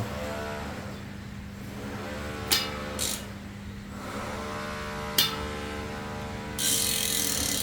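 Carbon mountain-bike wheel hub being turned by hand: a few sharp clicks, then from about six and a half seconds in a fast, even freehub ratchet buzz. A steady low hum runs underneath.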